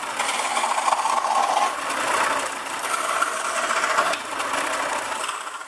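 Homemade mini bandsaw running with a rattle. Its pitch shifts about two and four seconds in, then it cuts off suddenly at the end.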